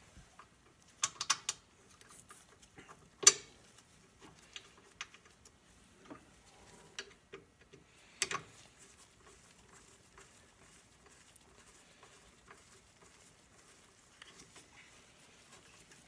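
Hand tool clicking and clinking on the carburetor mounting bolts of a small engine as the carburetor is bolted down. A quick run of three clicks comes about a second in, a sharper knock a couple of seconds later, another near eight seconds, and faint ticks in between.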